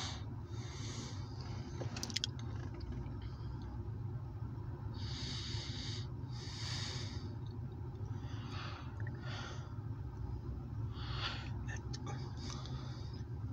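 Steady low rumble inside a vehicle's cabin, with several short, breathy hisses close to the microphone at irregular intervals: a person breathing.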